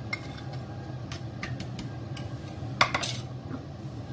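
Kitchen utensils and dishes clinking and knocking: a few scattered light clicks, then a quick cluster of sharper clatters about three seconds in, over a low steady hum.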